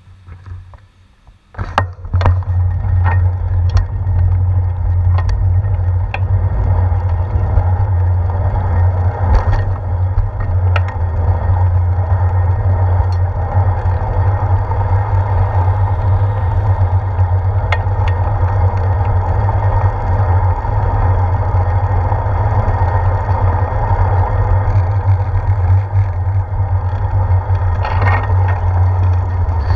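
Wind rumbling on the microphone of a handlebar-mounted GoPro camera as a bicycle rides along a road, with scattered clicks and rattles from the bike. It starts suddenly about two seconds in, as the bike pulls away from a stop, and stays steady after that.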